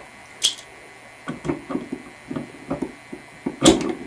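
Channel-lock pliers slipping and clicking against a metal bathroom faucet aerator as they fail to grip it. There is a sharp click about half a second in, a few small knocks, and a louder clack near the end.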